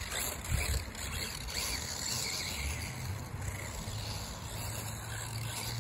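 Brushless-converted Feiyue FY01 two-wheel-drive RC truck running across a grass lawn, heard from a distance as a steady motor sound with a low hum that rises and falls as it drives.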